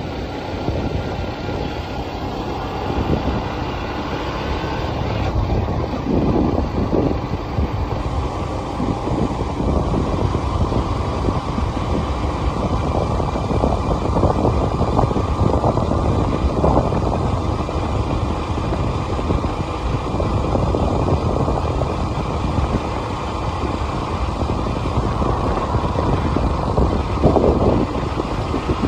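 A vehicle travelling along an open road: a steady rumble of engine and tyres, with wind buffeting the microphone in irregular gusts.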